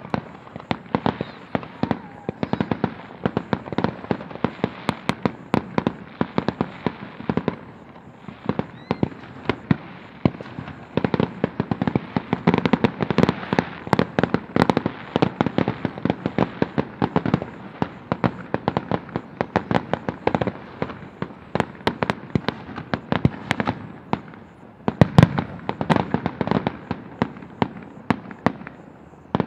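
Fireworks going off in a rapid, continuous string of sharp bangs and pops, several a second, with the loudest bang about 25 seconds in.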